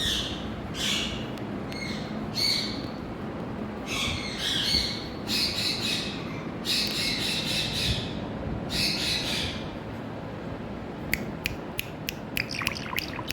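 Indian ringneck parakeet calling: a series of harsh squawks, several lasting about a second, followed from about eleven seconds in by a run of sharp clicks.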